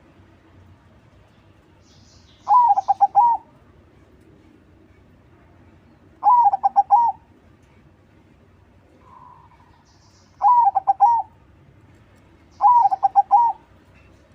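Crossing-bred perkutut (zebra dove) singing, four phrases of quick, rolling coo notes a few seconds apart.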